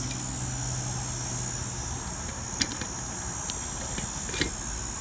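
A few light clicks of a metal canning-jar lid being handled and set on the jar's glass rim, over a steady background hum and high hiss.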